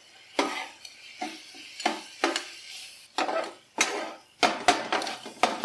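Onion, tomato and spice masala being stirred as it fries in oil in a karahi. A utensil scrapes across the pan in repeated strokes, roughly two a second.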